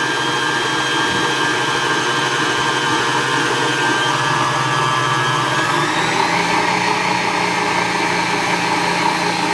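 Electric stand mixer whipping buttercream, its motor whining steadily. A little past halfway, the whine rises in pitch as the mixer speeds up, then holds at the higher speed.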